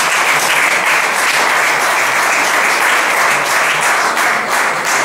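Audience applauding steadily, a dense round of clapping.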